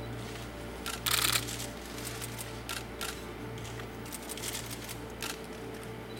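Camera shutters clicking in scattered single shots, with a quick run of clicks about a second in, over a steady low hum.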